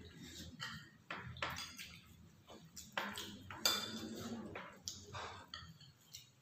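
Metal spoons clinking and scraping against ceramic bowls and plates while eating: a string of irregular sharp clicks with short ringing, the loudest a little past the middle.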